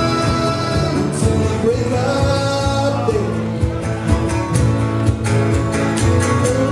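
Live acoustic country-folk band: two strummed acoustic guitars and a drum kit, with a man singing and a harmonica playing long held notes.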